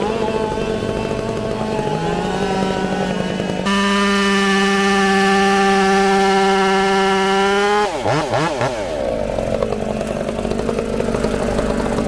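Engine of a vehicle stuck in a field, revving hard as it tries to drive out. The revs climb, hold high and steady for about four seconds, then surge rapidly up and down before dropping back.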